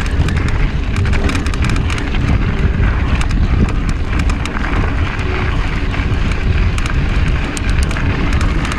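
Wind buffeting the microphone of a mountain bike riding fast over a rocky dirt trail, with tyre crunch and many scattered clicks and rattles from the bike and stones.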